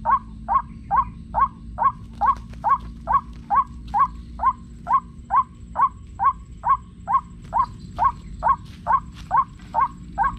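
White-breasted waterhen call played as a hunting lure through a homemade speaker: a short, rising-then-falling 'kwak' note repeated at a steady pace, a bit over twice a second. Faint rustles of footsteps in dry leaves come through from about two seconds in.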